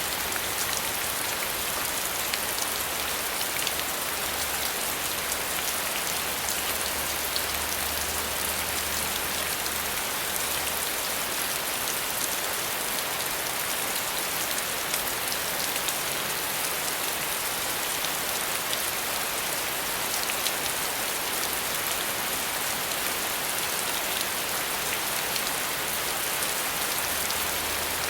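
Steady rain falling: a dense, even hiss with many small individual drop ticks through it.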